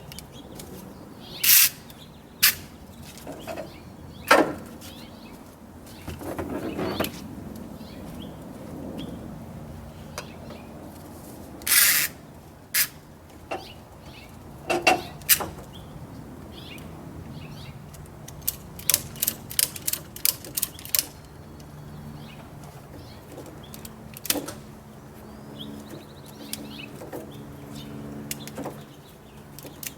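Husky self-retracting ratcheting tie-down straps being hooked on and ratcheted tight: scattered sharp clicks and snaps, with a run of quick ratchet clicks about two-thirds of the way through.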